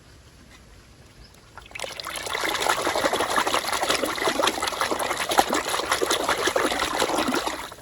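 Water running and splashing onto toy vehicles being washed. It starts about two seconds in and cuts off suddenly near the end.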